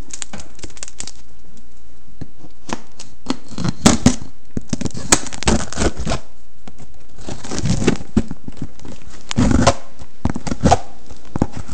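Packing tape being ripped off a cardboard shipping box and the box torn open by hand: irregular tearing, crackling and rustling of tape and cardboard, loudest about four seconds in and again late on.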